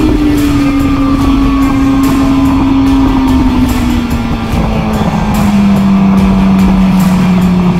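Racing motorcycle engine under heavy wind rush on the onboard microphone. The engine note falls slowly and steadily as the bike eases off just after crossing the finish line.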